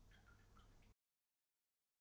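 Near silence: faint room tone that cuts to complete silence about a second in.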